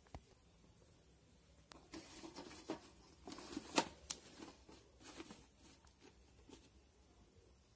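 Banana leaf rustling and crackling as it is pressed and folded into a metal steamer pot. A string of short crinkles and clicks starts a couple of seconds in, the sharpest near the middle.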